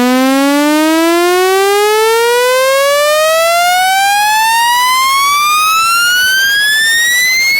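Loud speaker-cleaning sweep tone: one electronic tone gliding steadily upward in pitch, from a low hum to a high whistle. It is played to shake water or dust out of a phone speaker.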